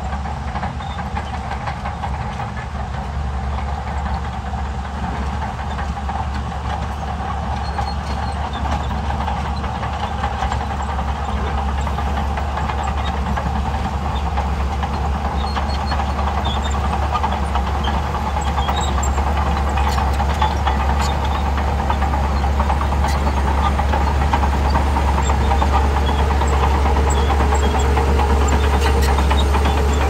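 Heavy diesel engines of a Shantui crawler bulldozer and a tipping dump truck running steadily. The sound grows gradually louder as the bulldozer works its blade into a pile of soil.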